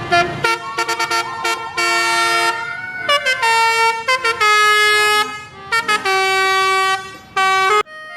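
Indonesian 'telolet' bus horn, a multi-tone horn playing a tune. It gives a quick run of short toots, then longer held notes that step between pitches, and stops abruptly near the end.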